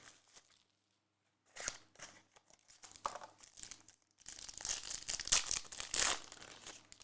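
Crinkling and tearing of a trading-card pack's wrapper as it is opened: a few scattered crackles, then a longer, denser stretch of crinkling from about four seconds in.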